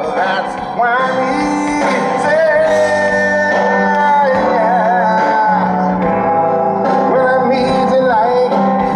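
Live band music with singing, played through the stage PA at an open-air concert and heard from within the crowd.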